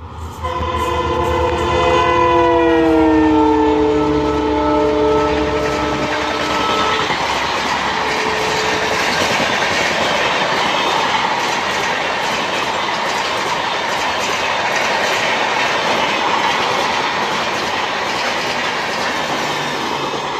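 A WDG4 diesel locomotive hauling a Humsafar Express passes at speed, sounding its horn chord for about six seconds, the pitch dropping as it goes by. The coaches then run past with a steady rush and rhythmic wheel clatter over the rail joints.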